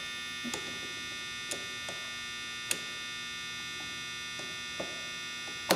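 A steady electrical hum, with a few faint clicks and one sharper click near the end from a screwdriver turning the needle seat into a Marvel Schebler carburetor's top casting.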